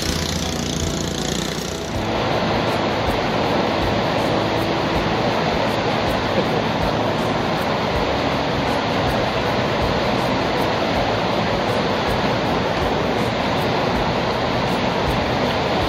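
Swollen, flood-high river rushing over rocks in rapids: a steady, dense rush of water.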